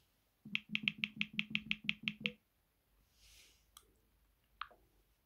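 Smartphone on-screen keyboard clicks: a quick even run of about a dozen key taps, some six a second, as the search text is deleted back one character at a time, then a couple of single taps near the end.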